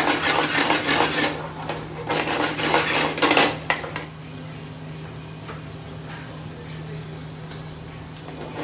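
Metal pans and utensils clattering in bursts for the first four seconds, then dying away. A steady low hum of kitchen extraction runs underneath throughout.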